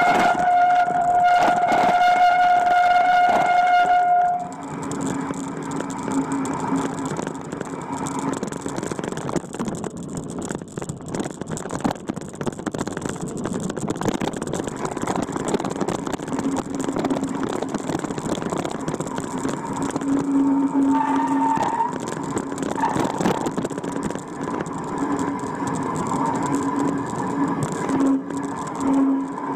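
Off-road vehicle driving over a rough dirt track: the engine runs under a noisy mix of frequent knocks, and its note comes and goes. For about the first four seconds a steady high tone sounds over it, then cuts off suddenly.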